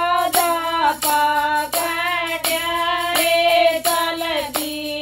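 A woman singing a Haryanvi folk devotional song (geet) in long held notes, over a steady beat of percussion strokes about every 0.7 s.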